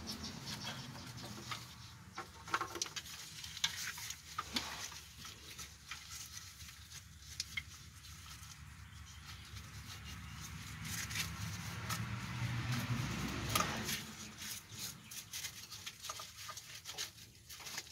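Scattered small clicks, taps and rustling of gloved hands working under a car, unclipping and moving a wiring harness. A faint low rumble swells about two-thirds of the way through.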